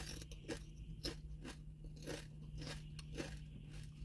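A person chewing potato chips close to the microphone: a steady run of short crisp crunches, about two a second.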